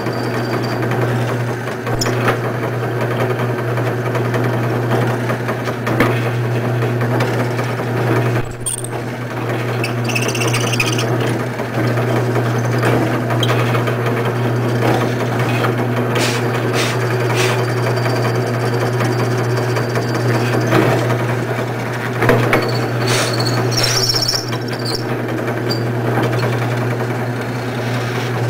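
Drill press with a 1/4-inch hollow mortising chisel attachment running with a steady hum. Intermittent knocks and scraping come as the chisel is plunged into an oak post to cut a mortise.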